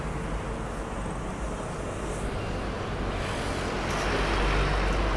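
Road traffic noise: a steady rumble of passing vehicles, swelling about four seconds in as one comes closer.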